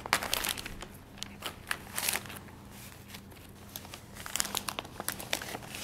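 Gift-wrapping paper crinkling and rustling as a present is unwrapped by hand, in irregular crackles that thin out for a second or so in the middle.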